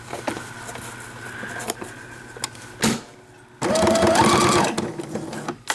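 Electric sewing machine stitching a hook-and-loop laundry tab onto a cloth diaper. After a few soft clicks of the fabric being handled, the motor starts about three and a half seconds in, its whine rising in pitch as it speeds up, runs for about a second and a half, then slows.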